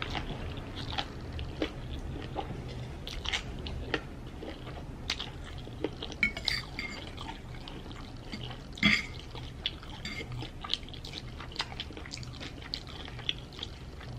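Close-miked eating of noodles: wet chewing, mouth smacks and slurps in quick irregular clicks, with the odd tap of a fork on the plate. The loudest slurp comes about nine seconds in.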